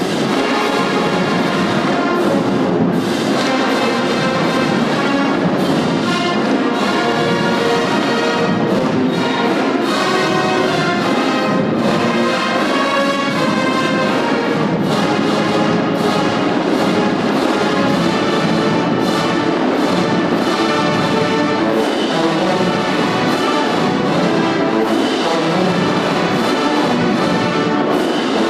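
A marching band playing: trumpets, trombones and sousaphones in full, loud ensemble, with the drumline's snare, tenor and bass drums beating underneath.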